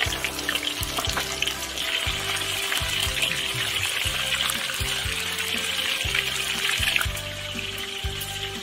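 Breadcrumb-coated chicken wings deep-frying in a wok of hot oil: a steady sizzle and bubbling that eases off a little near the end. Background music plays underneath.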